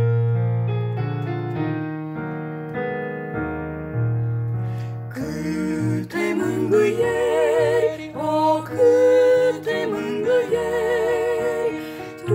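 Instrumental interlude of a hymn: sustained keyboard chords play alone at first. About five seconds in, a fuller accompaniment enters with a melody line sung or played with vibrato above it.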